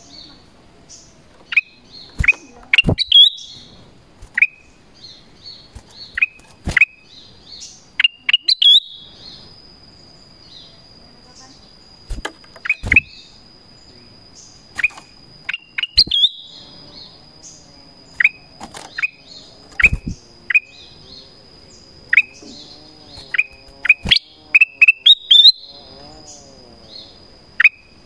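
Black-crested bulbul giving many short, sharp downward-sweeping call notes at irregular intervals, some in quick runs of three or four. A steady thin high tone sits in the background from about ten seconds in.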